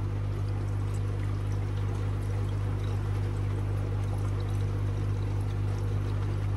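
Water poured from a plastic jug into a pond pump's pipework to reprime the airlocked pump, over a steady low hum from running equipment.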